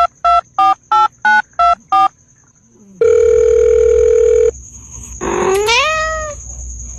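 Telephone keypad tones, a quick run of two-tone beeps about three a second, then a steady phone tone held for about a second and a half. Near the end comes a drawn-out pitched call that rises and then falls.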